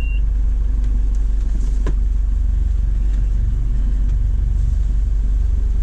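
Sailboat's inboard diesel engine running at a steady speed, a loud low drone with a fast, even pulse.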